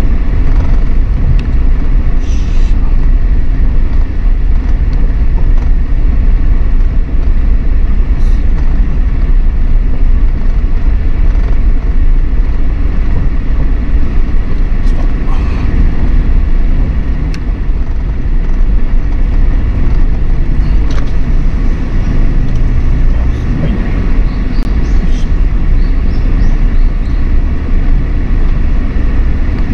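Road noise heard inside a car's cabin while driving slowly over gravel: a steady low rumble of engine and tyres, with scattered light clicks and knocks.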